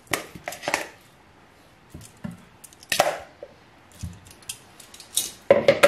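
Metal kitchen tongs clicking and knocking as raw seasoned chicken drumsticks are lifted from a plastic bowl and laid on the rack of an air fryer basket, with the soft wet sound of the meat being handled. The taps are irregular, and the loudest cluster comes near the end.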